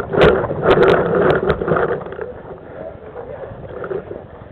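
Paintball markers firing: a quick string of about six sharp pops in the first second and a half, over a rushing noise, then only scattered faint ticks.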